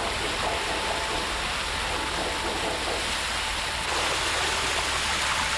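Steady rush and splash of hose water pouring over a ship's wooden deck and down its steps during deck washing, getting a little louder about four seconds in.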